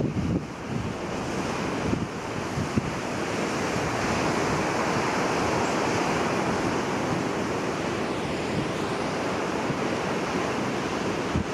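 Rough surf breaking and washing in a steady roar, with strong wind buffeting the microphone, gustiest in the first couple of seconds.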